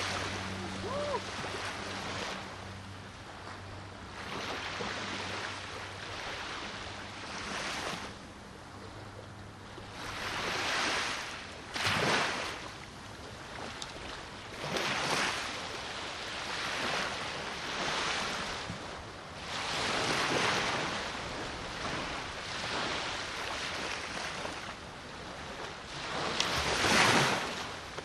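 Sea water washing and splashing close by in small swells that rise and fade every couple of seconds, with louder splashes about twelve seconds in and near the end. A low steady hum runs under it for the first ten seconds.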